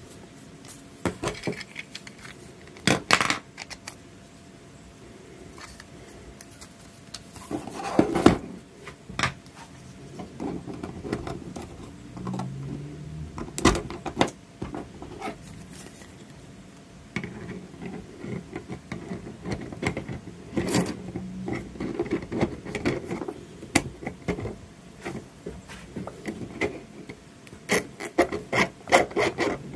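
3D-printed plastic chassis parts being handled and pushed together: scattered clicks and knocks, with scraping and rubbing as the extrusion bars and motor clamps slide into the brackets.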